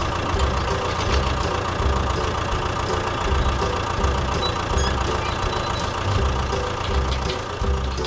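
Combine harvester engine sound effect running steadily as the machine drives past, over background music with a repeating bass line.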